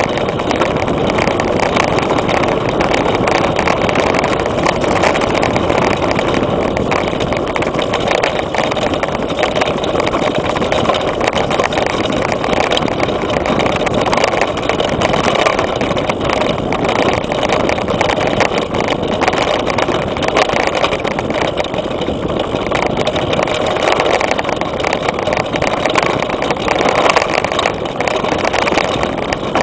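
Mountain bike riding fast over a dirt forest trail, heard from a camera mounted on the bike: a steady loud rush of noise with many small clicks and rattles throughout.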